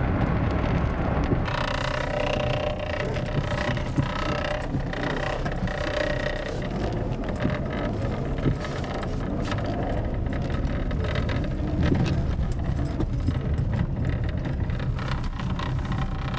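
A Chevy Cavalier's 2.2-litre four-cylinder engine running steadily while the car rolls over gravel, with a constant patter of small crunches and clicks from the tyres on the stones.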